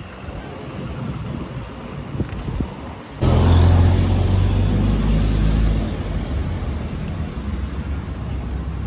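Street traffic: a low rumble at first, then about three seconds in a louder, steady low hum of a motor vehicle's engine running nearby.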